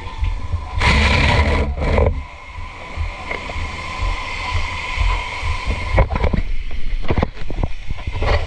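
Water rushing and splashing from a fire hose over a steady hum and low rumble. A loud rush of spray comes about a second in, and a few sharp knocks come near the end.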